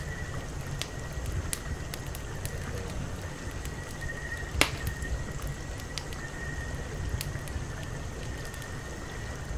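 Wood campfire crackling with scattered pops and one loud sharp pop about halfway through, over a steady low rumble and a thin, steady high tone.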